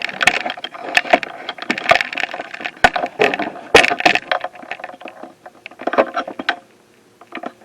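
Handling noise from a camera tripod head being adjusted close to the microphone: a busy run of clicks, knocks and rattles that stops about a second before the end.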